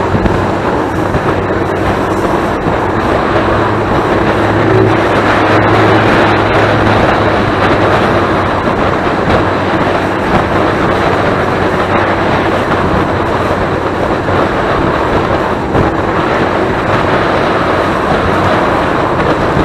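Motorboat running at speed across choppy water: a steady engine drone under a loud, even rush of wind and water.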